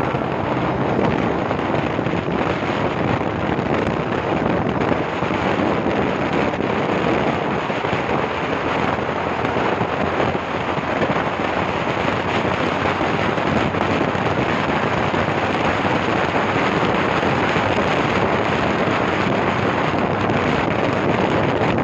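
Steady rushing wind and road noise from a vehicle driving along a wet road, with wind buffeting the microphone.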